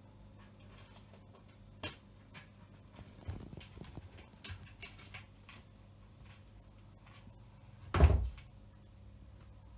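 A cat pawing at wooden under-sink cabinet doors, trying to open them: a few light taps and scratchy scrapes, then one loud thump against the cabinet about eight seconds in.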